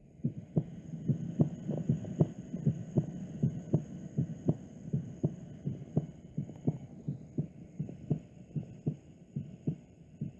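Human heart sounds heard through a stethoscope: a regular lub-dub, the first and second heart sounds, at about 78 beats a minute over a low steady hum.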